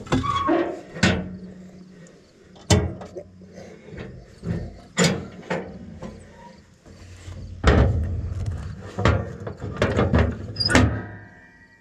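Excavator diesel engine running with a low steady hum, under a series of about ten loud, sharp clunks and knocks spaced irregularly through the stretch.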